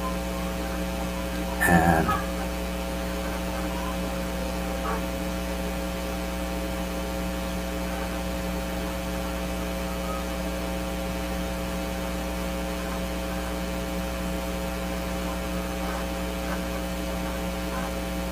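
Steady electrical mains hum, one unchanging low tone with a row of overtones.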